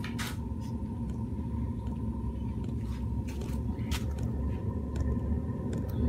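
12 V 5 kW diesel air heater running just after combustion has started: a steady low drone from the burner and blower with a steady higher whine over it, and a few sharp clicks.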